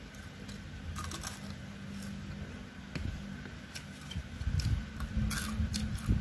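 Eating sounds: two people chewing fried chicken and rice, with scattered light clicks and scrapes of a spoon and fork against food boxes and soft low thumps near the end, over a steady low hum.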